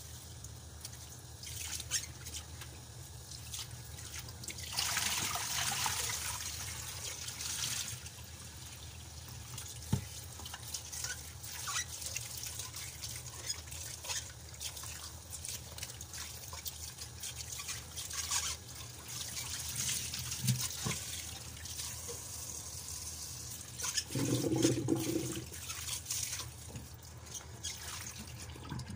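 Tap water running into a steel pot in a stainless steel sink while hands rub and rinse soaked dried sea cucumbers, with splashing and drips. The water runs harder for a few seconds early on, and there is a louder, lower stretch of sound about four seconds before the end.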